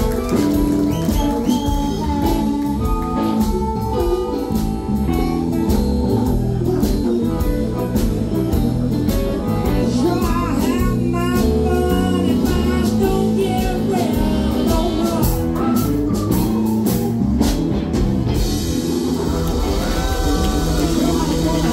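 Live electric blues band playing: harmonica, electric guitar, bass guitar and drums, with a man singing.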